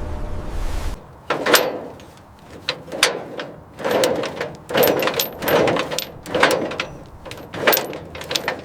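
A string of about a dozen irregular sharp knocks and clacks, each with a short ring, starting about a second in after a steady noise cuts off.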